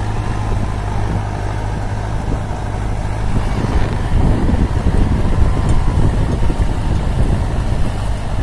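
Mahindra 605 DI diesel tractor engine running steadily under load while towing a fishing boat over sand by rope; about halfway through the sound turns rougher and a little louder.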